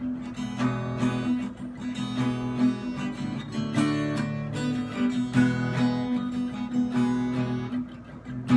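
Acoustic guitar strummed in a steady rhythm, the instrumental intro of a song.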